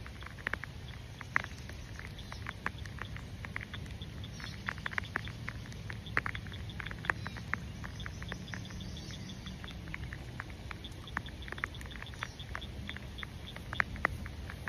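Raindrops pattering irregularly close to the microphone, sharp scattered ticks over a steady low rumble.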